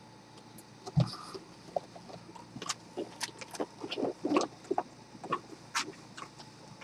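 Cardboard box and packaging being handled: a dull thump about a second in, then a run of light taps, clicks and scraping rustles as the contents are moved about.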